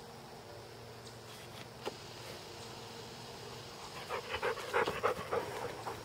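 A dog panting in quick, short breaths, starting about four seconds in after a few seconds of near-quiet.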